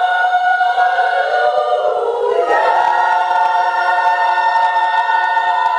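Women's church choir singing a cappella in harmony, moving to a new chord about two and a half seconds in and holding it as a long closing chord.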